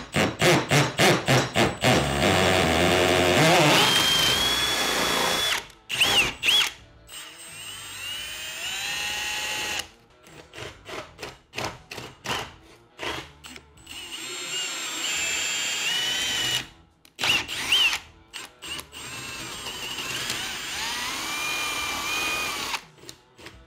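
Cordless drill boring a 3/8-inch hole through a knotty pine door. It starts in quick short pulses of the trigger, then runs in several longer stretches with short pauses between, its motor whine rising and falling in pitch as the bit works through the wood.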